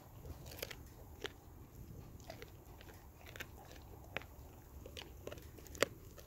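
Blue Bay Shepherd chewing a whole raw fish, its teeth crunching through the fish in scattered bites about once a second. The loudest crunch comes near the end.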